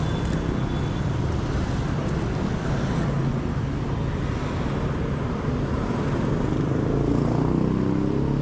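Steady street traffic, mostly motorbike engines running past. Near the end one engine comes closer and grows louder.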